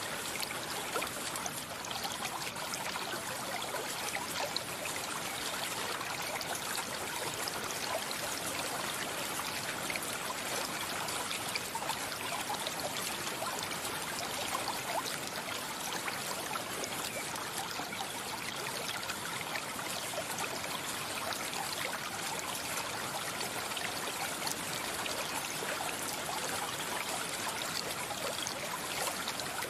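A stream flowing steadily: an even babble and trickle of running water.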